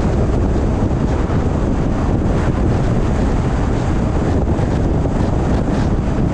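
Steady road and wind noise of a moving car, a low rumble with wind buffeting the microphone.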